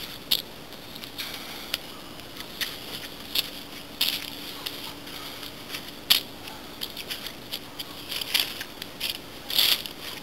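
Footsteps crunching on dry fallen leaves and twigs: irregular crackles that come thicker and louder near the end.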